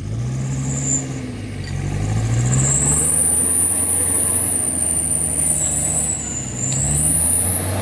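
Off-road 4x4 engine revving up and down as it drives out through deep mud, with a high whine rising and falling above it.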